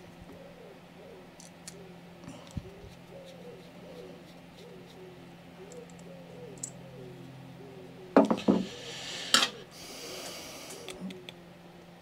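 Small metal clicks and taps of a screwdriver and a throttle butterfly plate being worked into a lawnmower carburettor, with a sharp knock and clatter a little past two-thirds through, then a brief hiss. A low steady hum runs underneath.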